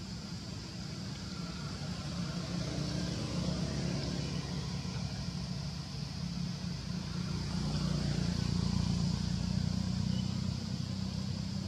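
Low rumbling background noise that grows louder about two seconds in and is loudest near the end, with a steady high-pitched hiss above it.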